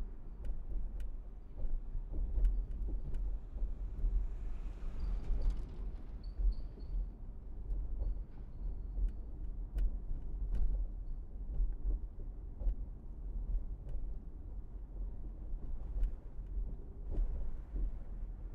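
Car driving, a low, uneven rumble of road and engine with scattered light clicks and rattles. There is a brief high squeak in short pulses about five seconds in.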